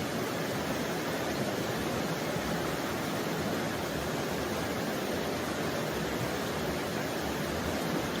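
Flowing water rushing steadily, an even hiss with no breaks.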